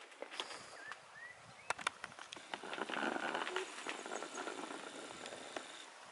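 Quiet rural outdoor ambience: two short rising bird chirps about a second in, scattered light clicks and ticks, and a soft hiss around three seconds in.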